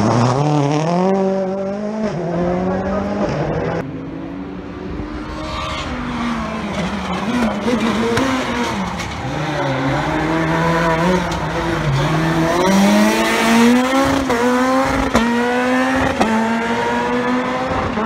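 Rally car engines revving hard on a circuit, the pitch climbing with each gear and dropping at every shift. Several quick runs of rising revs and upshifts come in the second half.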